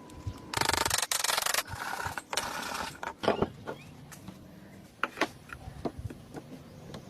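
A tool scraping across wood in three short strokes, the first about a second long, followed by scattered light knocks and taps on wood.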